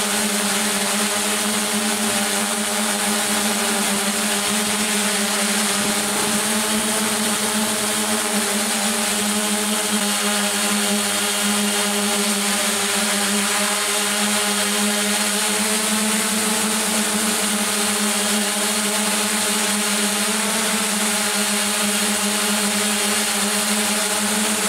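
Motors and propellers of an ADX-4 coaxial multirotor running steadily in flight: a constant, even-pitched buzzing hum with a high hiss above it, picked up close by the camera on the aircraft.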